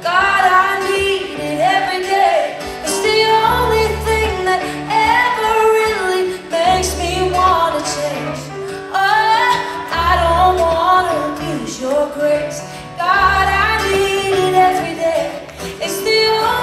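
Live band performance with a woman singing the lead vocal into a microphone over electric guitars, drums and deep held bass notes.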